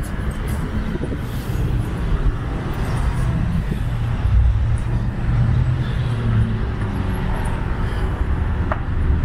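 Steady low rumble of road traffic and vehicles in an outdoor parking area.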